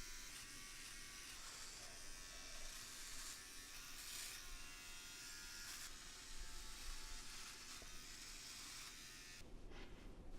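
Electric shaver buzzing steadily while shaving a beard, then switched off about nine seconds in.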